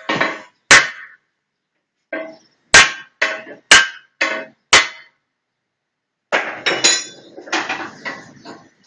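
Hammer blows on metal: about six sharp separate strikes over four seconds, each with a short ring, then a quicker run of clattering knocks near the end.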